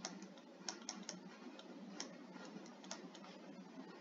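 Faint, irregular clicks of a stylus tapping on a tablet screen while handwriting, over a low steady hiss.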